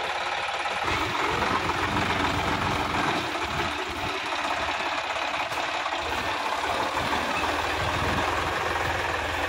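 Sonalika DI-50 RX tractor's diesel engine running under load as the tractor works through deep mud and water. The low rumble steadies and grows stronger about a second in.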